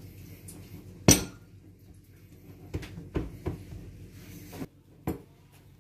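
Metal wire whisk knocking against a glass mixing bowl while stirring a stiff donut dough: about six sharp clinks at uneven intervals, the loudest about a second in.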